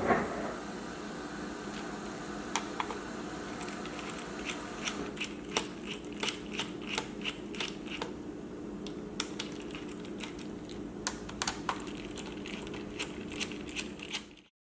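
Irregular light clicks and taps on a laptop, over a steady low hum, with a brief thump at the start. The sound cuts off to silence near the end.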